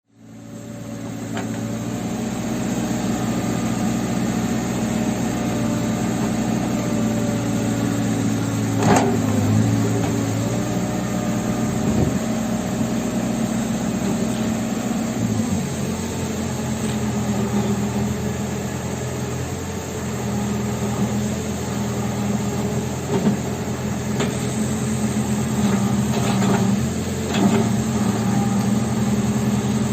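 New Holland backhoe loader's diesel engine running steadily, its note shifting about halfway through, with a few sharp knocks and clanks, the loudest about nine seconds in.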